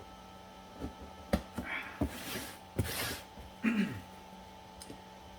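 Cardboard box being opened with a sharp blade: scattered knocks and clicks, and two short ripping scrapes about two and three seconds in, typical of packing tape being cut. A brief low voice-like sound falls in pitch near the end.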